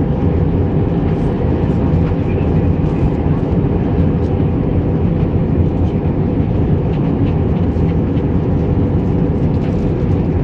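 Steady cabin noise inside an Airbus A321 in flight: the even drone of the jet engines and air rushing past the fuselage, deep and constant, with a faint steady hum above it.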